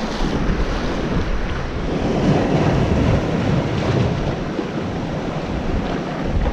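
Sea surf breaking and washing among rocks, with strong wind buffeting the microphone. The surge swells a little louder a couple of seconds in.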